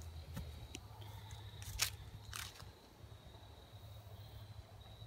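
Footsteps crunching on a dry, leaf-strewn dirt trail, about five scattered steps in the first two and a half seconds and then tapering off, over a low steady rumble and a faint steady high insect drone.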